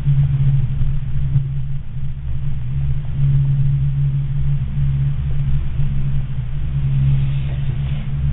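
Gondola cabin rumbling in the wind: a steady low rumble and hum that swells and eases every second or two as gusts buffet the cabin and the microphone.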